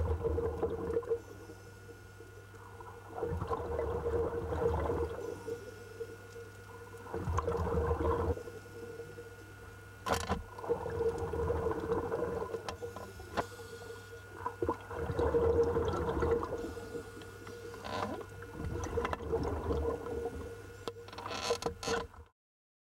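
Scuba diver breathing underwater through a regulator: exhaled bubbles rumble and gurgle in a swell about every three to four seconds. A steady hum and a few sharp clicks run underneath, and the sound cuts off suddenly near the end.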